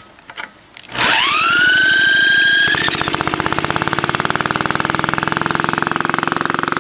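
Cordless drill spinning the starter of an early-1950s Toro Sportlawn's single-cylinder engine, its whine rising and then holding steady. Near the three-second mark the engine catches and runs with rapid, even firing pulses while the drill's whine dies away.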